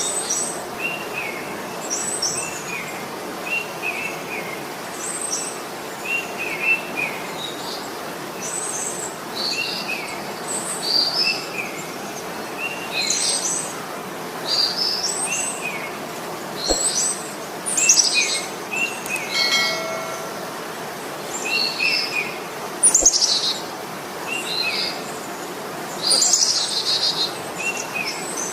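Several songbirds chirping and singing over a steady background hiss: short repeated calls mixed with higher, sharper chirps and trills. About two-thirds of the way through, a brief lower call with a clear pitch joins them.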